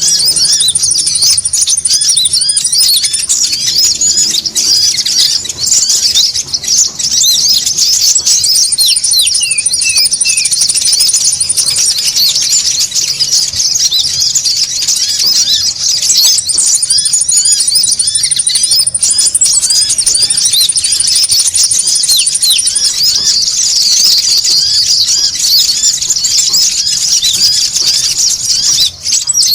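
A crowd of konin sunbirds calling busily: a dense, continuous chatter of quick high chirps, played as a bird-lure recording. Over it, a steady, very high trilled note comes in for a few seconds at a time, four or five times.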